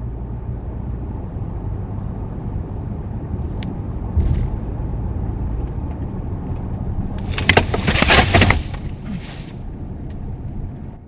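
Steady low road and engine noise from inside a moving car. A louder rush of noise with a few sharp clicks comes from about seven to eight and a half seconds in.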